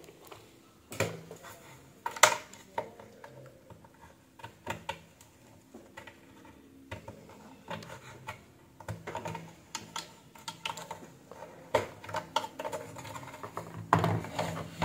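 Irregular clicks, taps and light knocks of small tools and parts being handled on the plastic chassis of an opened electronic weighing scale while its power switch is desoldered. Sharper clicks come about one and two seconds in and again near the end.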